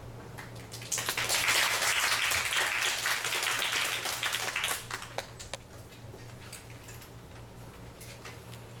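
Audience applauding for about four seconds, then dying away into a few scattered small knocks and shuffles as the string players take their seats.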